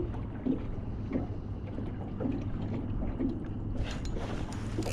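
Small waves lapping and slapping against the hull of a small boat, soft knocks about once a second, over a steady low rumble. Near the end a louder rushing, rustling noise comes in.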